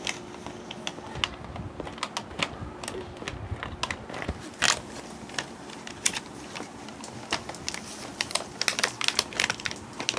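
Scissors snipping through a toy's clear plastic blister packaging, with irregular clicks, snaps and crinkling of the stiff plastic as it is cut and handled.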